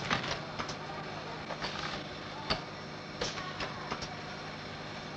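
Bottling machinery running with a steady hum, with irregular light clinks of glass bottles of shark-liver oil knocking together.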